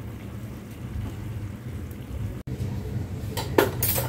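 Stir-frying rice noodles and vegetables in a wok: a low steady rumble, then near the end a few sharp scrapes and clacks of a spatula against the metal wok, the loudest about three and a half seconds in.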